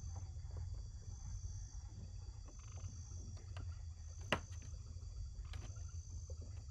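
Marsh ambience: insects trill in a steady high chorus that swells about every second and a half, with frogs croaking now and then over a low rumble. A single sharp click comes about four seconds in.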